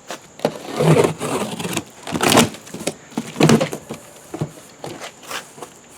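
A cardboard box being opened: flaps pulled and cardboard rubbing and scraping in several irregular bursts, the loudest about one, two and three and a half seconds in.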